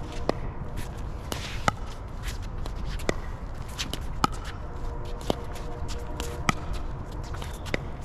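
A ball struck back and forth in a doubles rally: seven sharp hits, about one every second and a quarter, with footsteps shuffling on the court between them.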